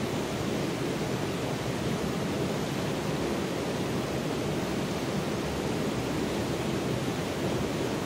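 Steady rushing of a shallow, rocky creek as its water runs over stones, an even, unbroken sound with no changes.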